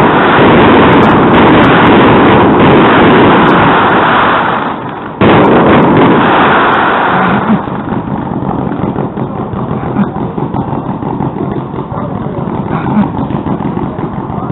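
Fireworks going off in a dense, very loud barrage of bangs and crackling. It drops away briefly about five seconds in, then comes back with a sudden burst. From about seven seconds in it is quieter, a rapid crackle with occasional sharper pops.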